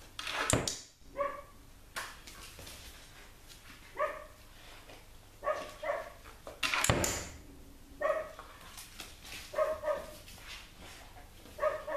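Young Australian Shepherd giving short, separate barks, about eight spread through the stretch, with two sharp thumps: one near the start and a louder one about seven seconds in.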